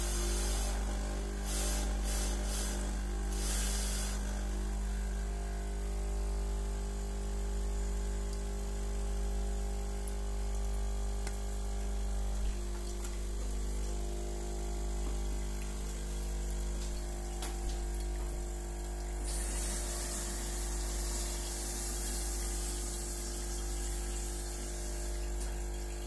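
De'Longhi pump espresso machine running during a descaling flush, its pump humming steadily as it pushes citric-acid solution through. Short hisses of water and steam come out in the first few seconds, and a louder steady hiss starts about two-thirds of the way in.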